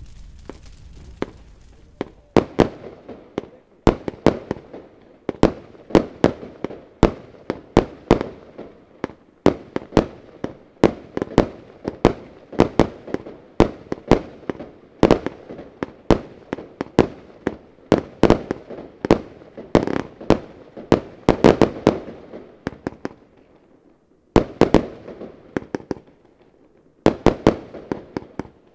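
A 144-shot consumer fireworks cake (Lesli 'Tsunami of Gold') firing, starting about two seconds in. Sharp shots come about two a second, often in quick pairs, with crackling in between, and there are a couple of brief pauses near the end.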